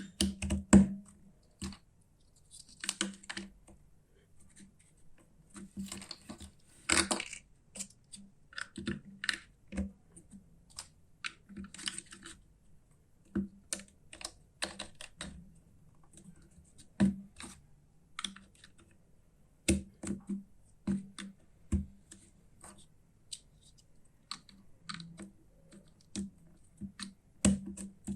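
Irregular clicks, taps and short rustles of hard plastic toy parts being handled, a few to several a second with brief pauses between.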